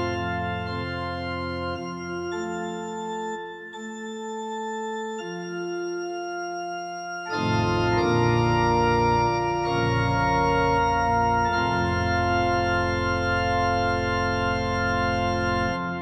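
Organ playing slow, sustained chords that change every second or two. About seven seconds in it swells fuller and louder, with deep bass notes underneath.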